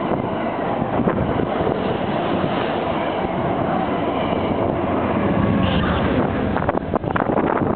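New Jersey Transit push-pull train passing close by at speed, with steady loud wheel and rail noise as the Comet coaches go by. Its Genesis P40DC diesel locomotive, pushing at the rear, comes past near the end with a quick run of rail clicks.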